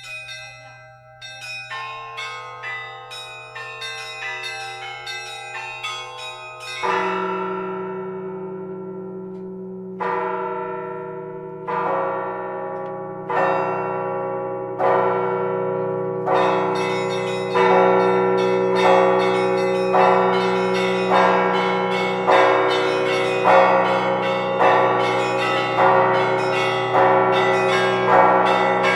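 Church bells ringing. Quick, lighter strikes come first. About seven seconds in, heavier, deeper strokes take over at roughly one every second and a half, each ringing on into the next as the peal grows louder.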